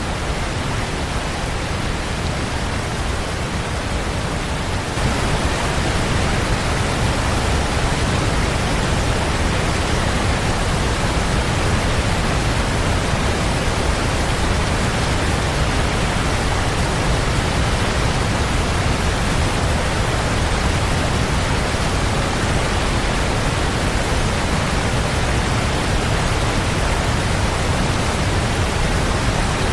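Steady rushing of a large waterfall, growing a little louder about five seconds in.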